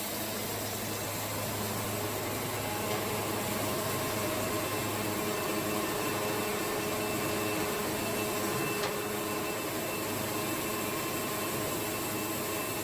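Sawmill running with a steady mechanical hum and hiss. A faint steady whine joins in about three seconds in.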